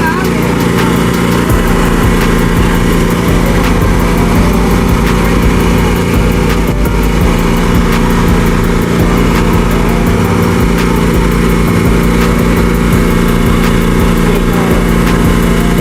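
A small engine running steadily at one speed, loud and close, with an even hum.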